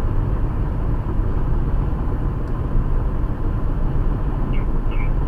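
Steady road and engine noise inside a Toyota RAV4 cruising on the freeway, a low rumble of tyres and motor. A few faint short chirps near the end.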